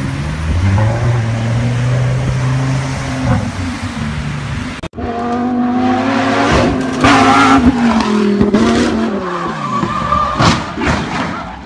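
A sports car's engine running as it drives through deep flood water. After a sudden cut about five seconds in, another sports car's engine revs up and down hard, with several sharp cracks and tyre squeal as it slides around a hairpin bend.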